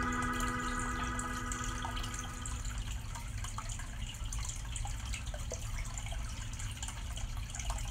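Aquarium water bubbling and trickling, with small drips and pops as air bubbles rise and break at the surface. A held musical tone fades out over the first two or three seconds.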